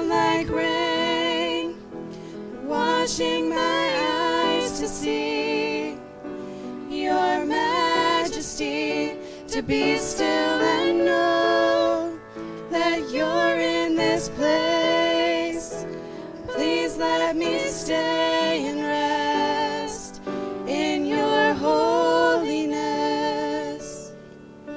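Two women singing a gospel song as a duet into microphones, holding notes with vibrato over instrumental accompaniment.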